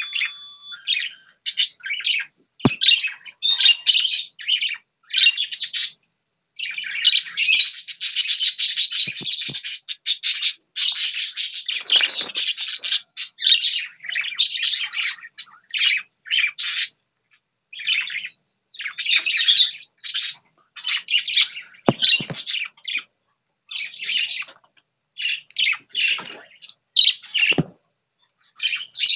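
Pet budgerigars chattering and warbling in quick bursts with short pauses, joined by three dull knocks.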